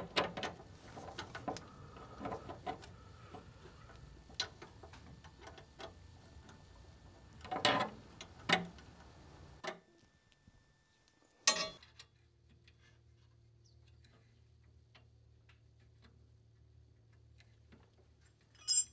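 Wrenches clinking and clicking against a brake-line fitting, with a few sharp metallic knocks as a brake-line retaining clip is hammered into place.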